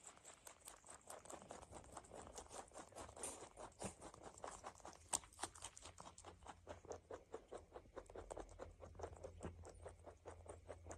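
A rabbit chewing a dandelion stem and flower: quiet, rapid crunching clicks, several a second, with one sharper click about five seconds in.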